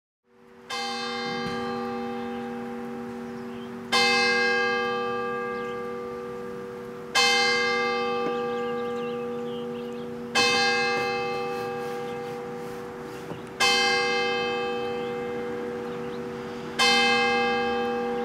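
A single church bell tolling slowly, struck six times about three seconds apart. Each stroke rings on and fades into the next, with a steady low hum carrying through between strokes.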